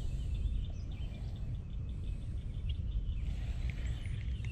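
Wind rumbling on the microphone, with faint bird chirps and a short run of quick high ticks in the background.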